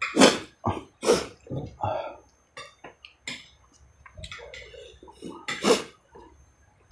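Close-up eating sounds: a man chewing a mouthful of rice and beef ribs, making a run of short, loud mouth noises. The loudest come just after the start, about a second in, and near the end.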